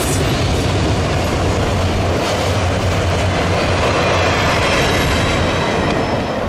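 Freight train of autorack cars and a trailing caboose rolling past, steel wheels on rail giving a loud, steady rumble.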